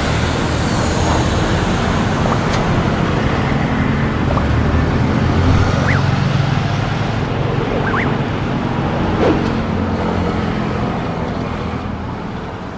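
Airbus A340-600's four Rolls-Royce Trent 500 turbofans at takeoff thrust as the jet rolls, lifts off and climbs away: a steady, heavy rumble that fades near the end, with wind buffeting the microphone.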